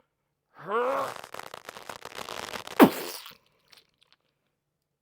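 A person's voice making a non-speech vocal noise: a short rising groan that breaks into a crackling, rattling creak for about two seconds, with a sudden sharp squeak sliding down in pitch near the end.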